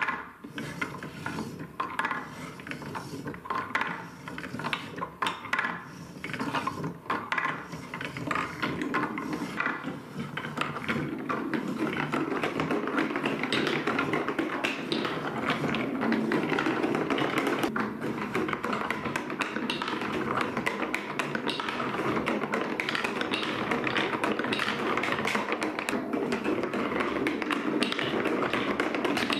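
Wooden balls rolling and clacking through a HABA Trix Track marble run of plastic and wooden track pieces, with the hand-cranked stair lift clicking as it steps the balls upward. Separate clacks over the first ten seconds or so give way to a steady, dense clatter as many balls run at once.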